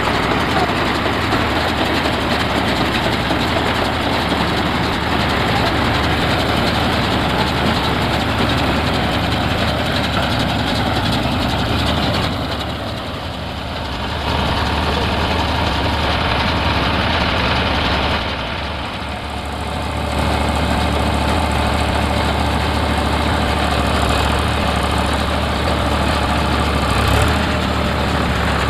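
Eicher 557 tractor's diesel engine running steadily, with two brief drops in loudness about halfway through.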